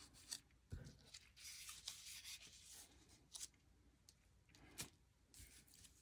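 Faint rustling of paper and cardstock being handled and slid on a tabletop, with a few light taps, the firmest about a second in and near the end.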